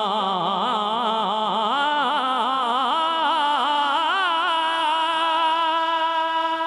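Solo male voice singing a Punjabi rubai into a microphone with no instruments, drawing out one long syllable. The voice wavers through quick melismatic ornaments, then settles on a steady held note about five seconds in.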